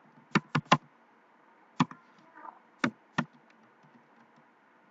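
Six separate keystrokes on a computer keyboard: three quick ones in the first second, then three more spread out.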